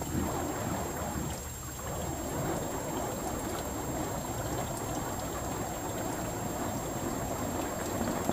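Burning fire poi heads swung through the air, giving a steady rushing whoosh of flame.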